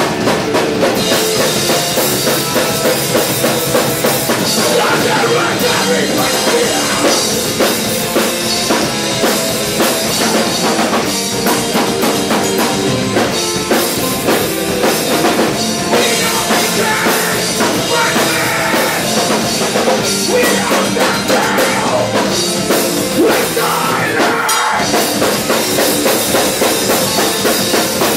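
A live rock band playing loud, full-band music: electric guitars over a drum kit.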